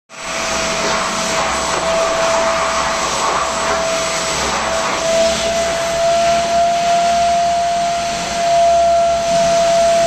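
Stainless-steel drum wet-and-dry vacuum cleaner running steadily, its motor giving a constant rushing hiss with a steady whine. It is sucking dust from a sliding window's track through the hose nozzle.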